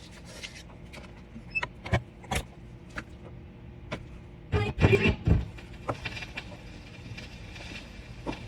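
Clicks and knocks from handling a record player before the record starts, scattered sharp clicks with a cluster of louder thumps about halfway through.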